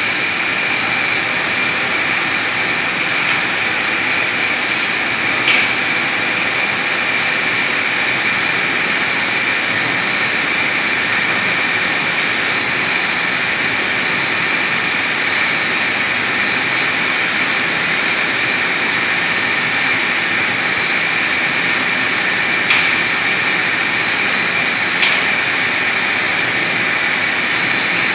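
Electrostatic disk bell spray painting system running: a steady, loud rushing hiss with a high-pitched whine held at constant pitch, from the bell's air-driven spinning and the spray booth's airflow. A few short clicks cut through it, about five seconds in and twice near the end.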